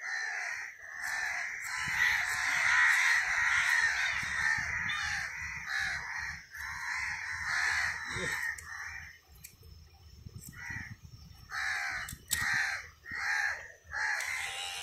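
Birds calling over and over in short, harsh calls, several overlapping at first, then single calls about twice a second.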